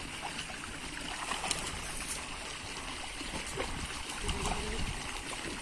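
Pond water sloshing and trickling as men wading in an earthen fish pond haul a seine net toward the bank. The sound is a steady wash of water with small splashes scattered through it.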